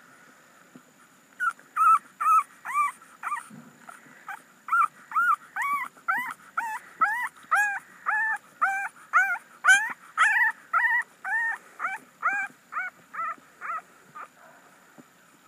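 A very young bulldog-type puppy crying while being held, a steady string of short high-pitched whimpering cries at about two a second, each rising and falling in pitch. The cries begin about a second and a half in and stop near the end.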